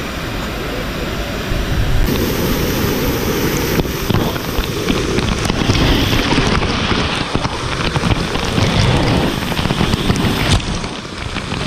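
Waterfall pouring straight onto the camera: a loud, dense rush of falling water with many small hits of drops on the case, growing louder about two seconds in as the camera goes under the falls.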